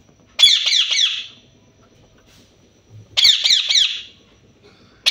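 Alexandrine parakeet screeching: two loud bursts of four or five quick, harsh, falling notes each, about half a second in and again about three seconds in, with another burst starting at the very end.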